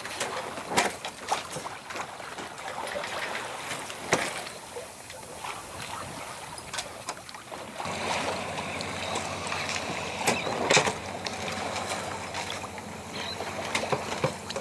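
Wind and water noise aboard a sailboat under sail, broken by sharp knocks or gusts every few seconds. From about eight seconds in, a low steady hum joins the noise.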